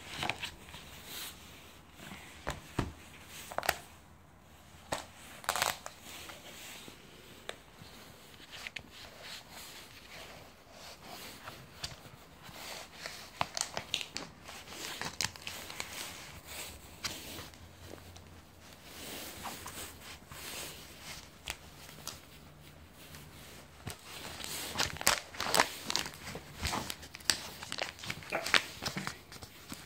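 Handling noises as a Moko plastic tablet case is worked onto a Fire HD 10 tablet: scattered clicks and snaps with rubbing and crinkling between, growing busier near the end.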